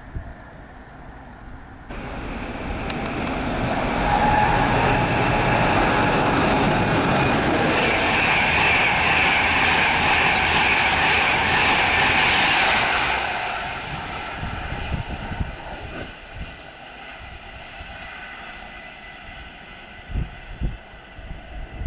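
Intercity express train passing the platform at speed. Wheel and rail noise builds over about two seconds, stays loud for about nine seconds with a steady high ringing tone, then fades away.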